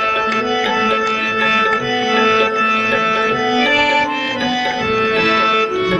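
Instrumental passage of a Hindi devotional bhajan: tabla drumming under a melody of long held reedy notes, with no singing.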